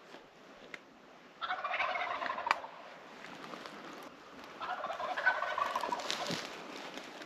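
Wild turkey gobbler gobbling twice, about three seconds apart.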